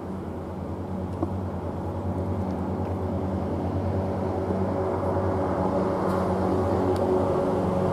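Two coupled DB Class 612 diesel multiple units approaching at low speed: the steady hum of their diesel engines, growing gradually louder as the train nears.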